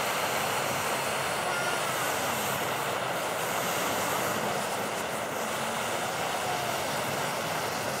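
Handheld gas torch running with a steady hiss as its flame sets a plastic toy car burning.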